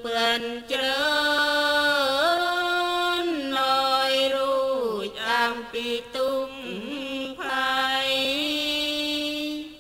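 A single voice chanting a melodic Thai Buddhist chant in long held notes that step up and down in pitch, with short breaks between phrases.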